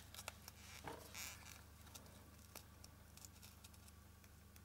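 Near silence: faint rustling and a few light ticks of fingers handling a satin ribbon and a flexible measuring tape on a foam ball, over a low steady hum.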